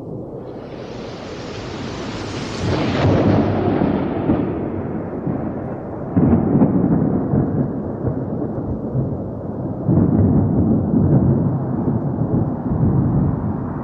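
Rolling thunder: a rushing swell in the first few seconds, then deep rumbles that surge again about three, six and ten seconds in.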